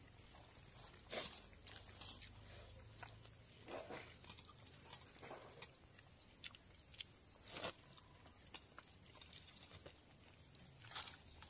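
Faint scattered clicks and soft knocks, the strongest about a second in, near the middle and near the end, over a steady high-pitched hiss.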